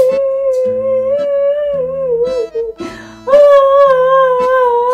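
A woman's drawn-out fake crying wail, two long wavering cries with a short break between, over background music with plucked guitar notes.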